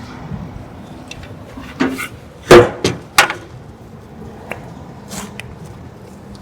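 A handful of short, sharp knocks and scrapes from handling work materials, the loudest about two and a half seconds in, followed by a couple of faint clicks.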